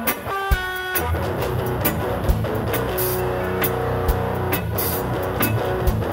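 Reggae band playing live without vocals: guitar and bass over a drum kit, with a sharp drum accent about every two seconds and cymbal washes.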